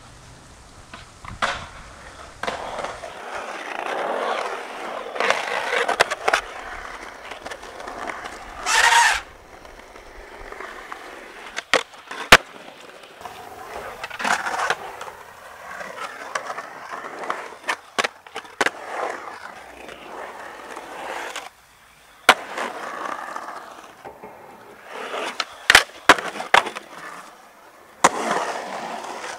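Skateboard wheels rolling over concrete ramps and transitions, the rumble swelling and fading as the board carves, with sharp clacks of tail pops and board landings scattered throughout.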